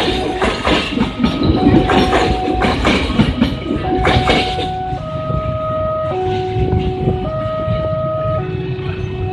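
Wheels of a departing CC 201-hauled passenger train clattering over the rail joints, stopping about two-thirds of the way in as the last car passes. Throughout, a two-tone electronic warning signal alternates high and low about once a second.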